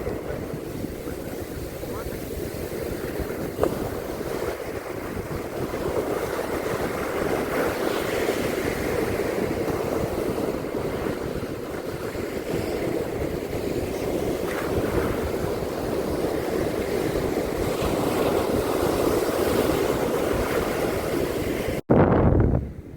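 Surf washing steadily onto a beach, with wind rumbling on the microphone. Near the end the sound cuts out for an instant, then a short, loud low rumble follows.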